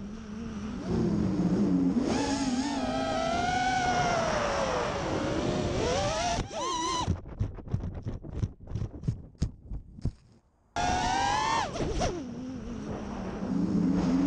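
FPV quadcopter's electric motors and propellers whining, the pitch rising and falling with throttle. About seven seconds in, as it goes into long grass, the sound breaks into short choppy stutters and cuts out briefly, then the motors spin back up with a rising whine.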